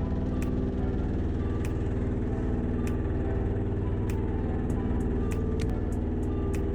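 A boat's engine running steadily with a low, even hum, with sharp clicks scattered through it every second or so.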